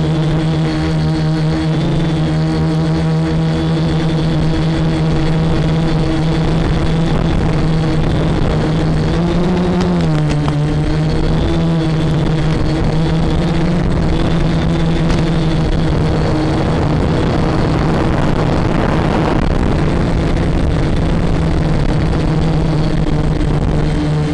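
Quadcopter motors and propellers buzzing steadily in flight. Their pitch rises briefly about ten seconds in, with a throttle change.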